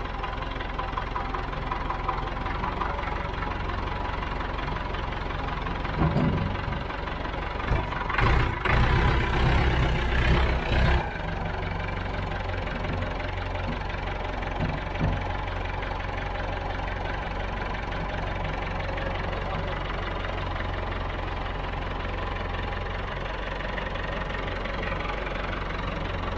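Tractor engine idling steadily. A louder stretch of noise from about eight to eleven seconds in, with a thump just before it.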